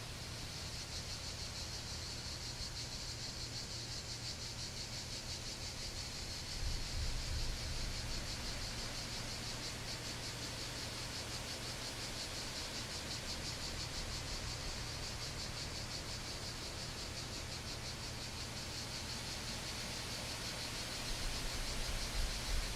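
Steady, fast-pulsing high chirring of a cricket chorus in forest ambience, over a soft noise bed. A low rumble swells briefly about a third of the way in and again near the end.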